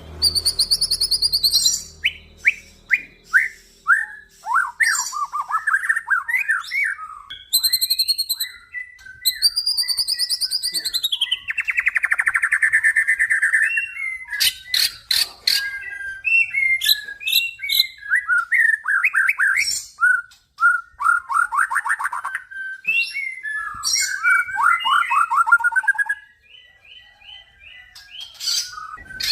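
Male white-rumped shama singing a long, varied song of clear gliding whistles, rapid trills and fast repeated notes, growing quieter near the end.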